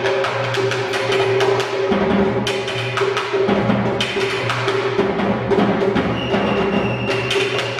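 A bass drum and a tom-tom beaten with sticks in fast, continuous drumming, with sharp clicking strokes over a steady ringing tone.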